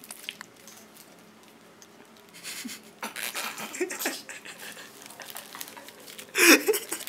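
Plastic food wrapping crinkling and rustling as it is handled and folded, in irregular crackly bursts that start a couple of seconds in, with a short loud burst near the end.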